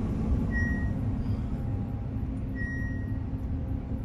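Combine harvester's engine running steadily, heard from inside the cab as a low drone. A short high beep sounds twice, two seconds apart.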